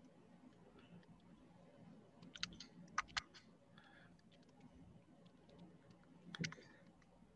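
Faint, scattered keystrokes on a computer keyboard over quiet room tone: a short cluster of clicks about two and a half to three seconds in, and another near the end.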